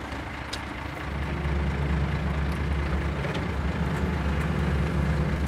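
Excavator's diesel engine running with a steady low hum, growing louder about a second in.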